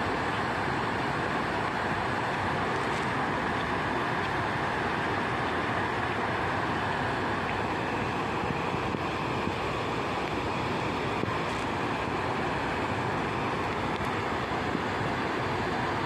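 Waterfall swollen by typhoon rain, falling water making a steady rushing hiss.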